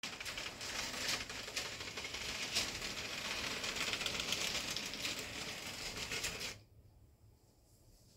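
HO scale model train running on its track: a steady, rapid clattering rattle of the wheels and mechanism that cuts off suddenly about six and a half seconds in as the train stops.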